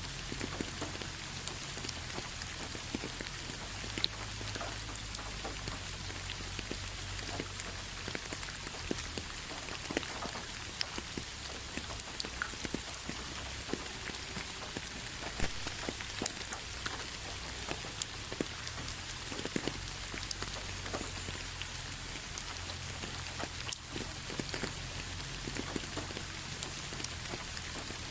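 Steady rain: an even hiss with many individual drops hitting a surface in sharp, irregular clicks.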